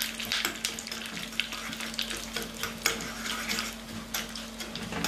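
Mustard seeds and curry leaves sizzling and crackling in hot ghee in a small pan, with dense popping over a steady hiss, as a spoon stirs the tempering.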